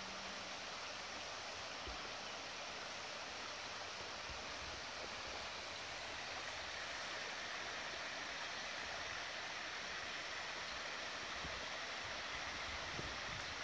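Steady rushing outdoor background noise, with a few faint low bumps.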